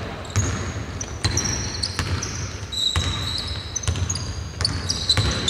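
Basketball dribbled on a hardwood court, bouncing about once a second, with sneakers squeaking sharply on the floor as players run.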